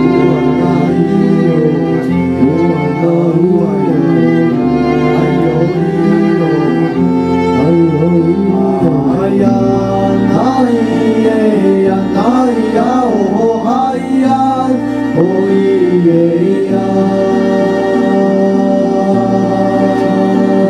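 Live song on double bass, cello and violin, with long held bass notes under a sliding, bending melody line and a singing voice.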